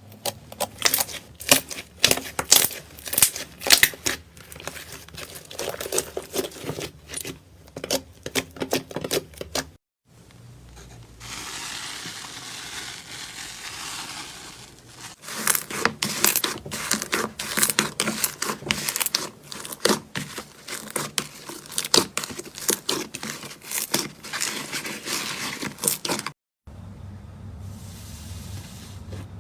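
Slime being squeezed and pressed by hand: quick runs of wet pops and crackles, broken by two abrupt cuts between clips, with a few seconds of steady crackly hiss in between.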